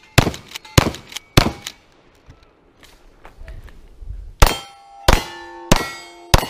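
Gunfire at a shooting match: three quick shots about two-thirds of a second apart, a pause of a couple of seconds, then four more shots at the same pace. Each of the later shots is followed by steel targets clanging and ringing on.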